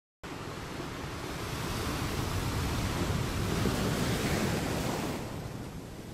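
Sea surf washing against rocks: a steady rushing that starts suddenly just after the opening, swells, and softens about five seconds in.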